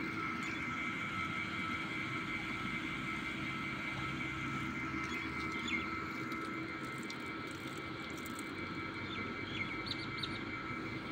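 A steady machine drone with several fixed tones, unchanging throughout, with a few faint bird chirps over it.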